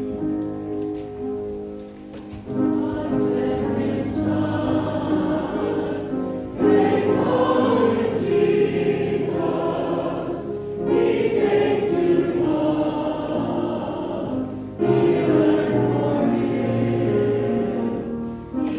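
Church choir of men and women singing, in phrases that begin with a swell in volume about every four seconds.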